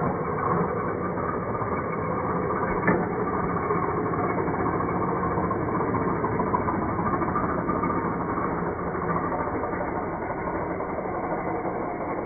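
Steady mechanical hum like an idling engine, with one sharp click about three seconds in.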